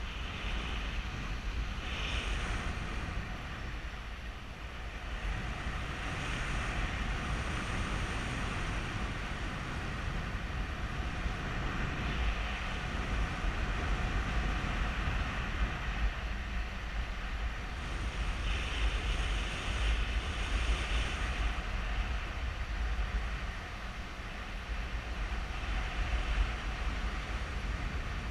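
Wind rushing over a GoPro Hero3's microphone in flight: a steady low rumble of buffeting with hissing gusts that swell and fade every few seconds.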